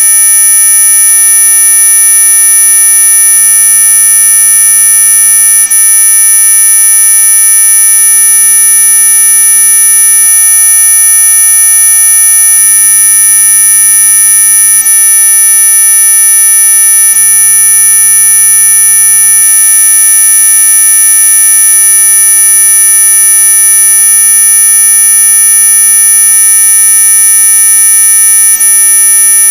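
Synthesized mosquito-repellent tone: a loud, unbroken electronic whine of several steady pitches held together, the strongest very high-pitched, like a continuous buzzer. It does not change at all.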